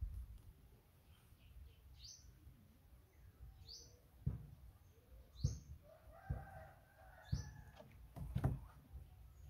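Bird calls in a garden: a short, high call that rises in pitch, repeated about every second and a half to two seconds, with a longer, lower call about two-thirds of the way through. Low thumps and bumps come in between, the loudest about halfway and near the end.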